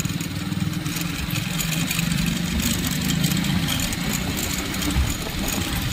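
Vehicle engine running steadily, a low, even pulsing drone.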